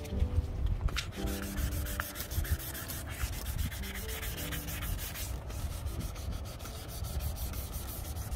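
Sandpaper scrubbing over a plastic headlight lens in a continuous run of quick strokes, wet-sanding with 600 grit to cut away the yellowed, oxidized surface haze.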